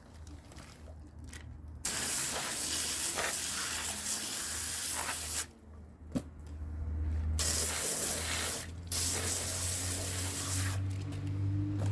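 Water spraying from a tap or hose nozzle in three bursts that start and stop abruptly, the longest about three and a half seconds.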